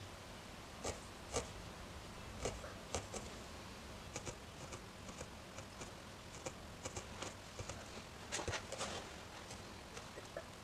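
Felting needle stabbing repeatedly into a small wool piece, making faint, irregular soft ticks, with a short quicker run of stabs about eight and a half seconds in.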